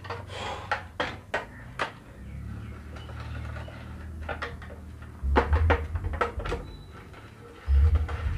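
Metal tools and engine parts clinking and knocking irregularly as they are handled during engine repair work, with two louder low bumps, one about five seconds in and one near the end.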